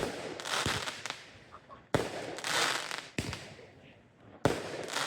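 Fireworks going off: a string of sharp bangs about a second apart, each trailed by crackling and hissing.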